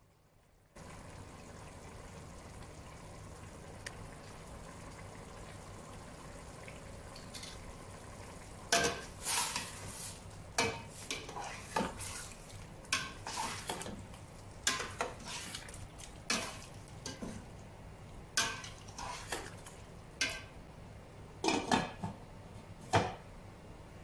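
Spoon stirring shrimp karahi in a stainless steel pot, clinking and scraping against the sides in irregular sharp knocks from about a third of the way in, over a steady low hiss from the cooking pot.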